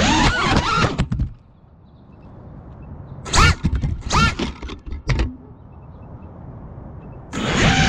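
FPV quadcopter's brushless motors whining and changing pitch, then cutting out about a second in as the quad goes down on the asphalt. A few short bursts of motor whine between about three and five seconds in flip it back upright, and the motors spin up again steadily near the end.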